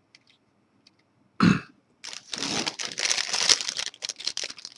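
One short cough about a second and a half in. Then, from about two seconds in, the crinkling of a clear plastic bag holding a small antenna and its cable as it is handled.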